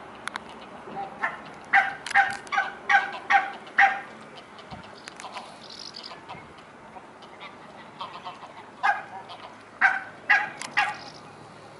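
Geese honking: a quick run of about seven loud honks a second or so in, then another run of about five honks near the end, over a steady low background noise.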